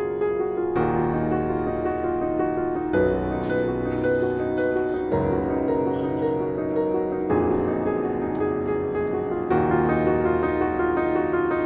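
Background music: soft piano with sustained chords changing about every two seconds.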